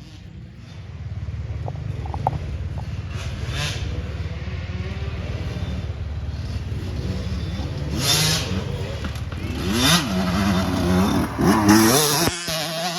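Dirt bike engines running on a motocross track, revving up and down, with the loudest revving in the last few seconds before the sound cuts off suddenly.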